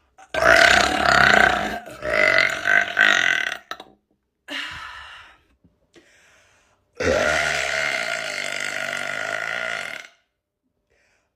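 A woman burping, a run of long burps: two in the first four seconds, a shorter, quieter one about halfway through, and a drawn-out burp of about three seconds near the end whose pitch starts high and drops.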